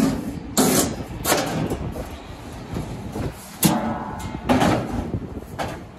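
Sheet-metal display cabinet and its panel being handled: about five sharp knocks and scrapes of metal at uneven intervals, one with a short metallic ring.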